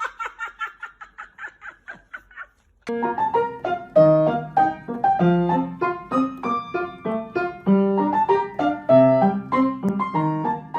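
Piano music playing quick, bouncy notes, starting about three seconds in. Before it comes a fast run of short high pulses that fades out.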